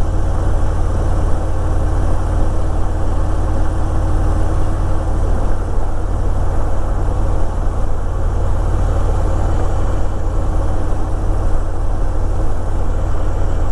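Harley-Davidson Electra Glide Ultra Limited's V-twin engine running steadily under way, a continuous low rumble mixed with road and wind noise, with no change in revs.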